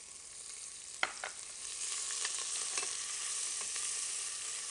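Diced onions sizzling in bacon fat in a stainless steel pressure-cooker pot while a slotted spoon stirs them, clicking and scraping against the pot several times, with a sharp knock about a second in. The sizzle grows louder about two seconds in.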